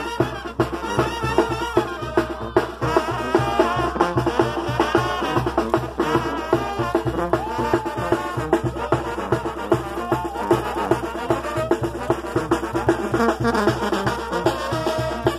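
Brass band playing a lively dance tune, trumpets and trombones over a steady drum beat.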